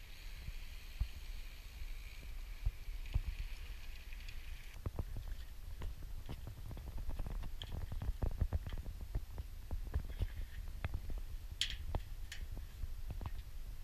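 Wind rumbling on the camera's microphone, with a steady hiss that cuts off about five seconds in. After that come irregular clicks and knocks.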